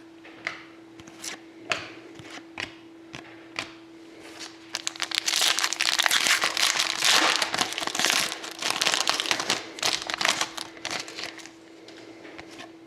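Hockey card pack wrapper being torn open and crinkled: light handling clicks at first, then a few seconds of dense crinkling about halfway in that tapers off near the end.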